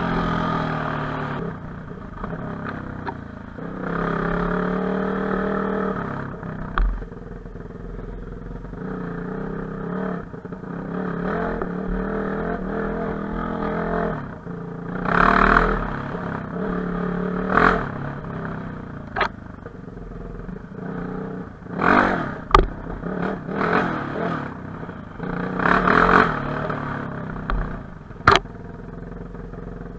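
Enduro motorcycle engine revving up and down while riding off-road, with scattered sharp knocks and clatter, several of them close together in the second half.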